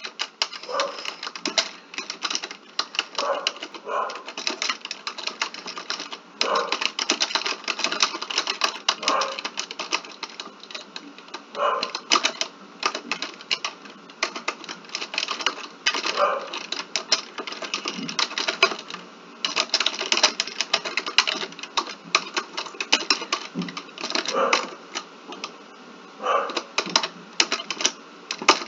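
Rapid typing on a computer keyboard: runs of quick keystrokes broken by short pauses.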